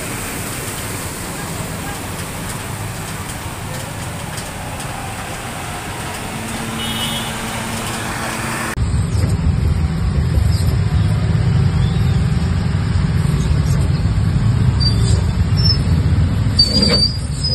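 Road traffic through floodwater: vehicle engines and tyres churning and splashing through the water, with a short horn toot about seven seconds in. After about nine seconds the sound changes to a louder, steady low rumble of riding in a rickshaw through traffic.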